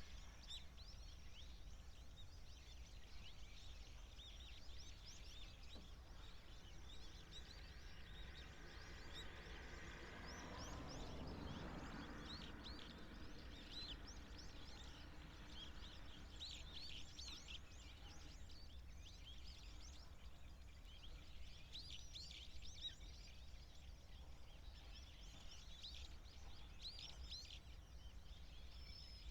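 A flock of waxwings giving many thin, high, trilling calls, faint and coming and going. A faint low rumble swells and fades about ten seconds in.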